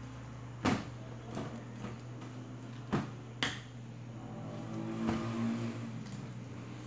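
Wire whisk beating thick sweet potato cake batter in a glass bowl, with a few sharp clicks as the whisk knocks against the bowl and softer scraping in between. A steady low hum runs underneath.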